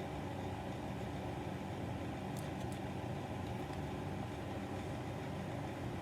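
Steady low mechanical hum, with a few faint light clicks about two and a half seconds in.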